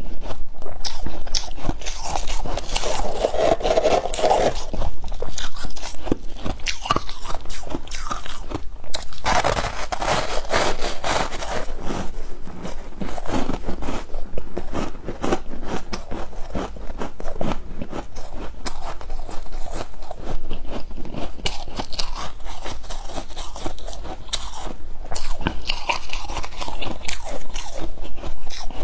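Foam ice topped with flaked ice crunching as it is bitten and chewed: a dense, unbroken run of crisp crunches.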